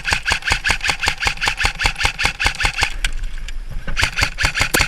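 AK-style airsoft electric rifle firing on full auto, a rapid even rattle of about eight shots a second. A long burst lasts about three seconds, then after a one-second pause a second burst begins.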